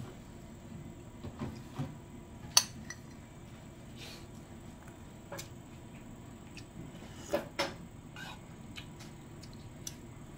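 Metal spoon knocking and scraping against a ceramic soup bowl, in a few scattered sharp clinks. The loudest is about two and a half seconds in, and two come close together about two thirds of the way through.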